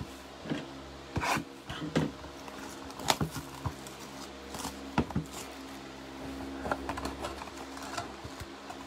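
Handling noise from trading-card boxes and plastic card holders on a tabletop: scattered clicks, taps and light rustling, the sharpest clicks about three and five seconds in, over a faint steady hum.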